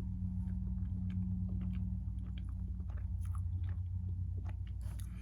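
Close-miked chewing of a deep-chocolate mochi roll cake: scattered short, moist mouth clicks and smacks over a steady low hum.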